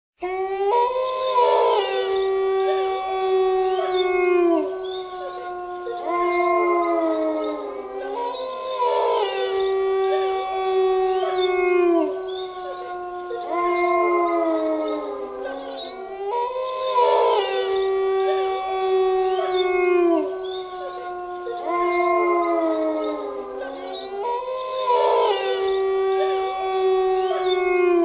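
A pack of wolves howling together, several long overlapping howls at different pitches that hold steady and then slide down. The same chorus repeats about every eight seconds.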